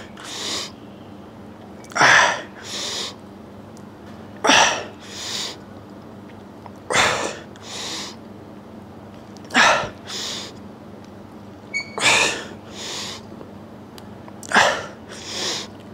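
A man breathing hard through the reps of a lying EZ-bar triceps extension: a sharp forceful breath, then a softer one, repeated about every two and a half seconds, six times in a steady rhythm.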